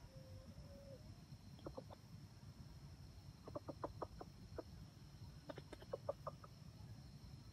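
Junglefowl clucking faintly: a drawn-out note in the first second, three quick clucks near two seconds in, then two runs of rapid clucks, the second about five and a half seconds in.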